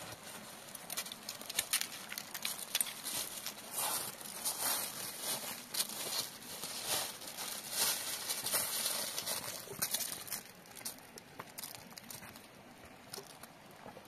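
Footsteps of two people crunching and scuffing on dry fallen leaves and loose stones on a steep dirt slope, an irregular run of crunches that thins out near the end.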